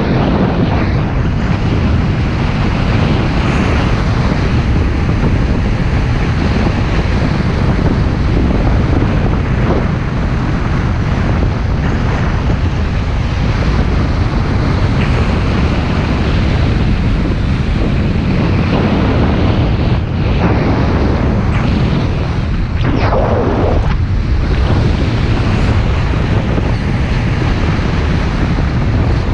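Heavy, steady wind noise rushing over the camera microphone of a speedrider flying fast down a snow slope on skis under a small paraglider wing.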